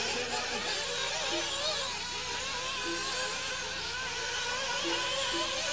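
Several nitro RC buggy engines buzzing at high revs, their pitches rising and falling together as the cars accelerate and brake around the track.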